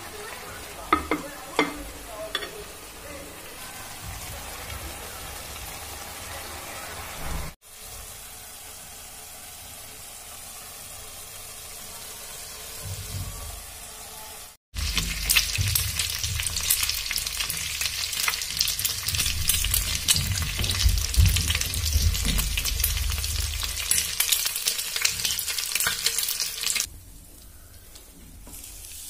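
Potatoes and fenugreek leaves frying in oil in a kadai: a steady sizzle, with a few knocks a second or two in. The sound breaks off briefly twice, and the second half is a dense, loud crackling sizzle that drops away near the end.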